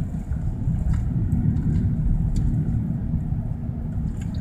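Steady low rumble of road and engine noise inside a moving car's cabin, with a few faint ticks over it.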